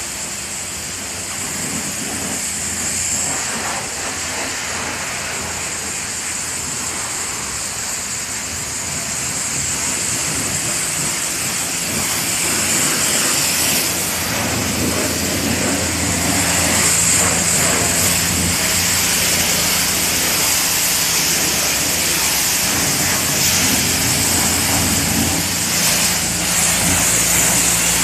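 Coin-operated washer running: a steady hiss over a low motor hum, growing louder about halfway through.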